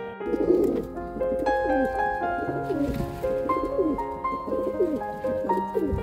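Domestic pigeons cooing repeatedly, about once a second, over background music with sustained piano-like notes.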